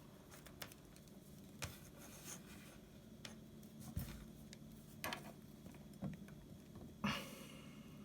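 Faint handling noises of the TV's left speaker wires being readied for tinning: scattered light clicks and taps and a short rub about seven seconds in, over a faint steady low hum.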